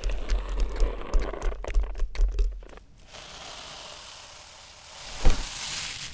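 Crackling, rustling noise over a deep rumble with many small clicks, giving way after about three seconds to a steady hiss that swells; a single sharp hit lands about five seconds in, and the sound cuts off abruptly at the end.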